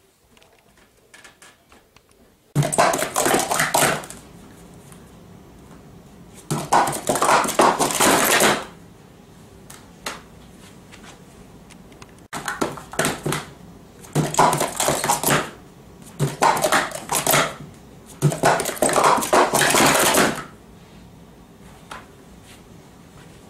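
Plastic sport stacking cups clattering in quick runs, each a rapid string of clicks lasting one to two seconds, six runs with short pauses between.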